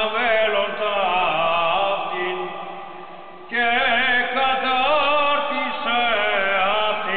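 Chanting by several voices in long, wavering held notes. The chant fades at the end of a phrase and resumes abruptly about three and a half seconds in.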